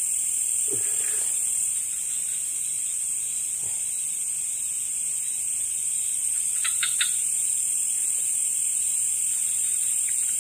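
Night insect chorus, mostly crickets, keeping up a steady high-pitched trill. A short three-part chirp cuts in about seven seconds in.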